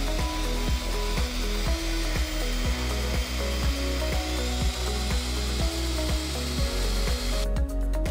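Electric hand mixer whirring steadily as it whips egg whites into a meringue foam, cutting off near the end, over background music with a steady beat.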